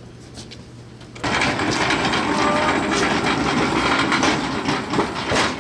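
A loud machine starts suddenly about a second in and runs on steadily with a dense, rushing noise.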